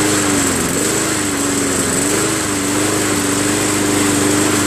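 Honda 5.5 hp mower engine running steadily after a carburetor clean and choke linkage adjustment. Its speed dips briefly twice in the first two seconds, then holds even.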